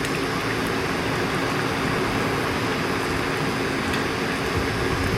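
Food frying in a hot pan, a steady sizzle over a low even hum.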